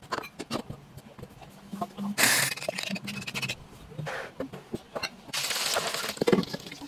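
A few clicks and knocks, then from about two-thirds of the way in a loud, steady hiss of hot oil as pieces of smoked skipjack tuna (cakalang fufu) fry in a wok.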